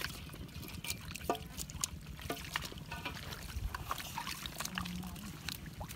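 Shallow muddy water being scooped and sloshed by hand, with dribbles into a plastic basin and bare feet squelching through mud, as a string of short splashes and trickles. A few brief pitched calls or voice sounds come in between.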